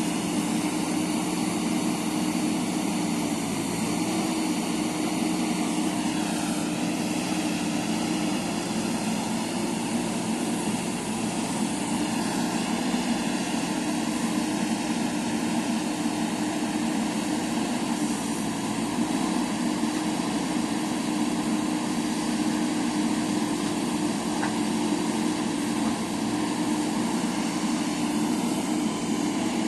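JCB backhoe loader's diesel engine running steadily under work, its pitch shifting slightly a few times.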